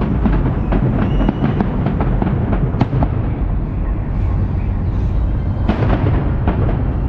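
Fireworks display: many shells bursting in quick succession, sharp bangs and crackles over a continuous deep rumble of booms, with a few short whistles.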